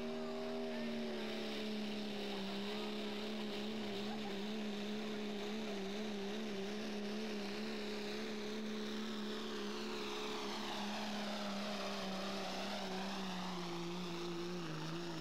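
Diesel pickup truck engine held at high revs while pulling a weighted sled, a steady, even drone. Its pitch sags a little near the end as the load builds.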